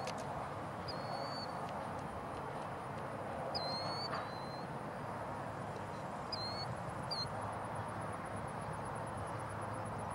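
Steady low rumble of a distant approaching diesel freight locomotive. A small bird gives short whistled calls several times over it, and a high, fast-pulsing insect buzz starts about two-thirds of the way through.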